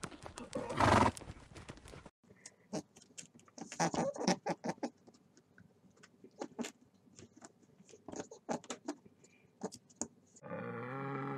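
A horse gives one loud breathy burst about a second in. This is followed by several seconds of scattered soft clicks and scuffs. Near the end a bison begins a deep, steady, moo-like bellow.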